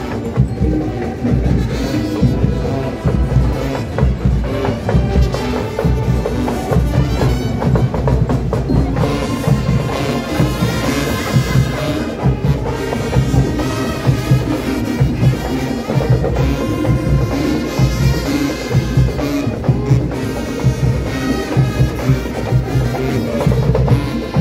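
A marching band playing a cumbia, with brass carrying the tune over drums and percussion keeping a steady dance beat.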